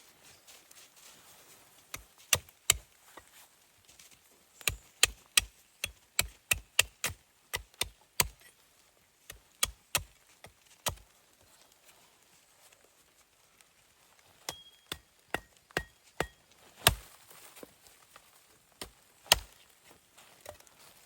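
Wood being chopped with an axe or hatchet: a series of sharp, irregular strikes, coming quickly for a few seconds in the middle and then more spaced out.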